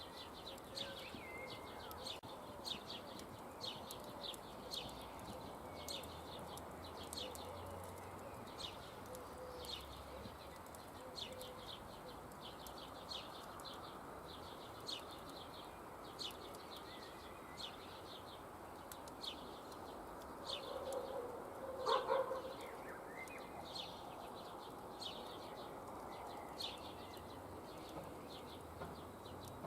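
Outdoor ambience with small birds repeating short, sharp chirps about once or twice a second, and one louder animal call about two-thirds of the way through.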